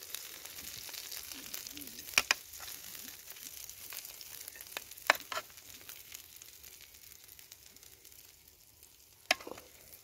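Cajun chicken sizzling hot off the campfire grill while pieces are moved onto a glass plate, the sizzle slowly fading. A few sharp clicks break through, about two, five and nine seconds in.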